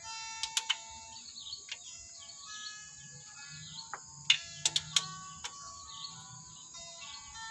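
A few short, sharp metallic clicks from a socket wrench being worked on the valve gear of a Nissan CM330 diesel cylinder head: a group of three about half a second in and another cluster around four to five seconds. Birds chirp and faint music plays throughout.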